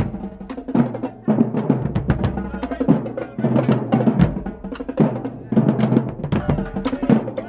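Marching band drumline playing: snare drums, tenor drums and bass drums beating a busy, driving rhythm of many hits a second.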